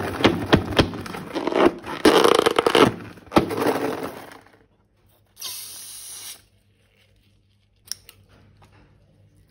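Slime being squeezed and worked by hand, with sticky crackling clicks and squelches for about four seconds. Then comes a short hiss of about a second, and a single click near the end.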